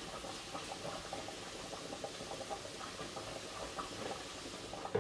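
Grated carrots sizzling in a frying pan: a steady crackling hiss.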